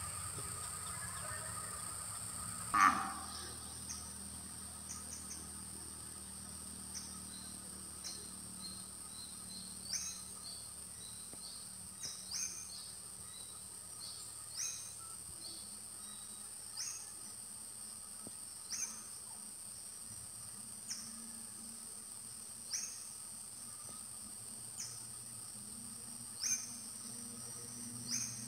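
Outdoor ambience in a coconut plantation: a steady, high insect drone, with a bird's short call repeated about every two seconds. One louder, sharper sound comes about three seconds in.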